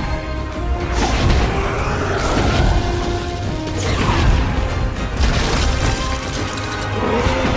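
Orchestral film score with held string and brass chords, overlaid by several loud crashing impacts and whooshes from a dragon battle.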